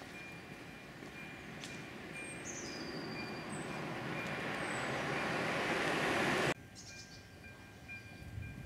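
Train hauled by the E422 electric locomotive approaching, its running noise growing steadily louder for about six and a half seconds, then cut off abruptly. A few faint high chirps come and go underneath.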